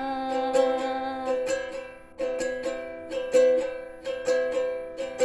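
Ukulele strumming chords in a steady rhythm, an instrumental passage between sung lines, with the sound of a small room.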